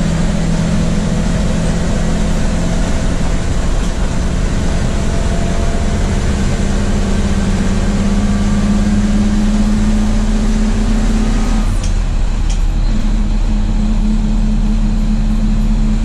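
1982 Chevrolet Blue Bird school bus's 366 V8 engine running at highway speed, heard from inside the bus with road and wind noise. Its drone climbs slowly in pitch, then breaks off briefly about twelve seconds in.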